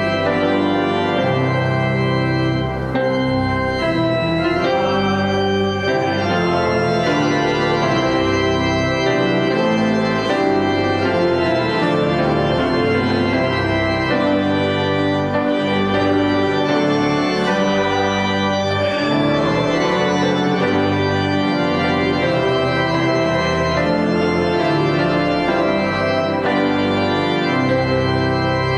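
Church organ playing sustained chords that change every second or so, with no break.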